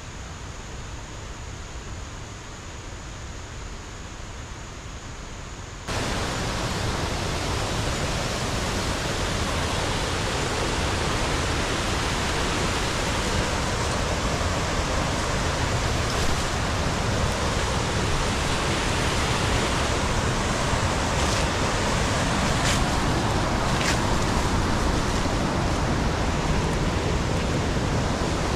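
Steady rushing of a waterfall and stream, which comes in abruptly about six seconds in after a quieter stretch of soft outdoor hiss with a faint high steady tone. A few short clicks sound about two-thirds of the way through.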